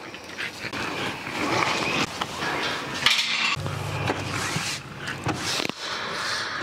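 Dogs making noise, mixed with the scraping of a broom being worked over a kennel floor.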